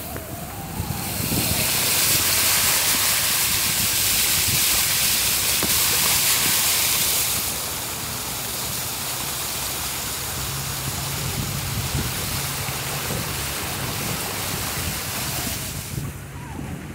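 Water hissing and splashing on a flooded street: loud for several seconds, then easing to a softer, steady rush with a low engine hum under it near the end.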